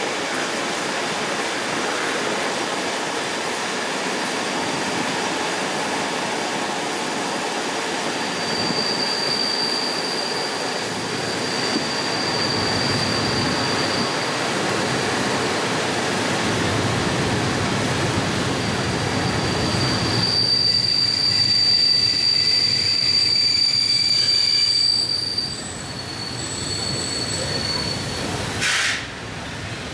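Train running on the rails, with a high, steady wheel squeal that sets in about a quarter of the way in and drops away near the end, where the running noise also gets quieter.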